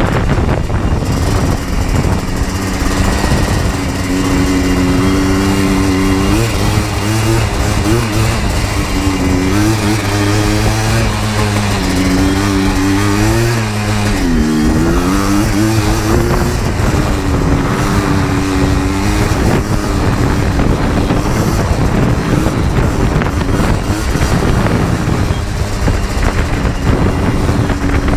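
Yamaha Blaster 200 ATV's two-stroke single-cylinder engine running under way, its pitch wavering with the throttle and dipping then climbing again about halfway through.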